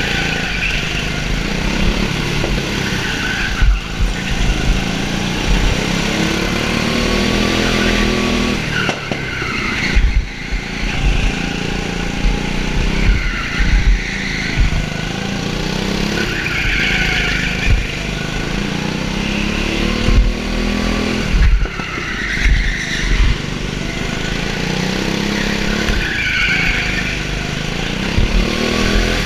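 Go-kart engine heard from a helmet-mounted camera, revving up and falling away again and again as the kart brakes and accelerates through corners, with wind and rumble buffeting the microphone.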